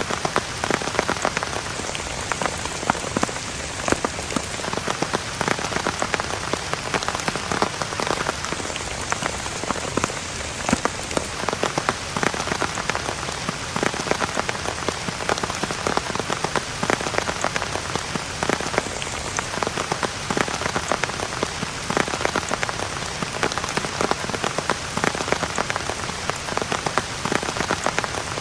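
Heavy rain falling steadily, with many sharp, irregular drop hits close by on a surface.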